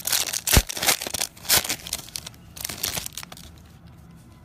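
Foil wrapper of a Prizm football card pack crinkling while the pack and its cards are handled, in a run of crackly bursts that dies down after about three seconds.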